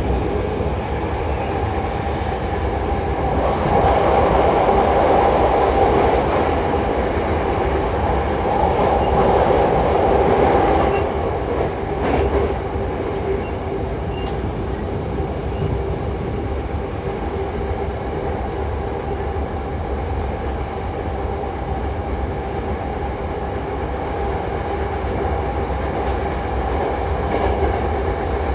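Hankyu 8000-series electric train running, heard from inside the car: a steady rumble of wheels on rail with a steady hum through it, growing louder for several seconds about four seconds in before settling back.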